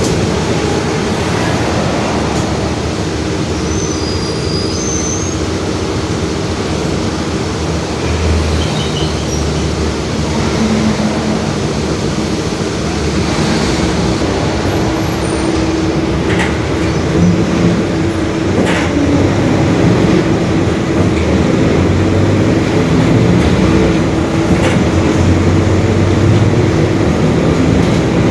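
Mercedes-Benz OF-1721 Bluetec 5 bus under way, its diesel engine running with the rear differential growling: a steady whine over the drone that grows a little louder in the second half.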